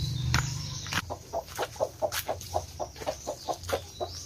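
Chicken clucking in a quick, steady run of short notes, about five a second. Two sharp knocks come in the first second.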